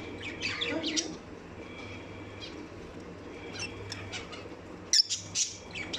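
Pet lovebirds chirping in short, scattered calls, with a louder sharp squawk about five seconds in, over a steady low hum.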